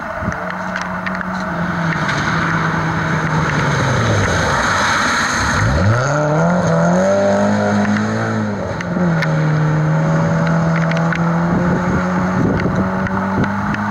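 Volvo saloon rally car driving hard on a wet gravel stage. The engine note falls as it lifts off, then climbs steeply as it accelerates away, with a gear change after about eight seconds, and then holds steady at high revs. The tyres hiss through water and gravel, loudest as it passes.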